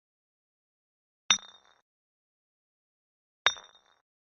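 Glass bottle being struck, two sharp clinks about two seconds apart. Each clink has a short, high ring that dies away quickly.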